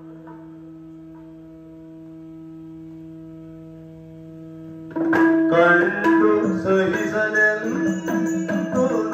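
A steady Yakshagana shruti drone holding one pitch for about five seconds, then the accompaniment comes in loudly: the bhagavata singing with maddale drum strokes.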